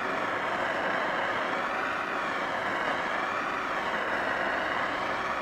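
Bernzomatic propane torch on a 1-pound propane bottle burning with a steady hiss of the flame as it is passed over a pine board to scorch and darken the wood.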